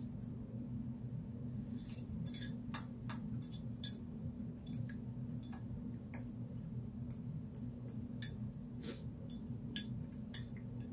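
Eating sounds: many irregular light clicks and clinks, as a utensil meets a dish during a meal, over a steady low hum.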